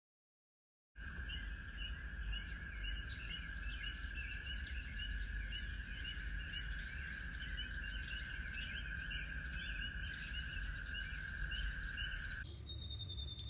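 Outdoor ambience: birds chirping repeatedly over a steady high drone and a low rumble. It starts about a second in, and the drone stops abruptly near the end.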